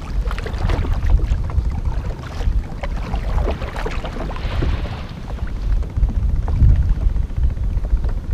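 Small fishing boat under way: a steady low motor-and-water rumble with wind buffeting the microphone, and a brief hiss of spray about halfway through.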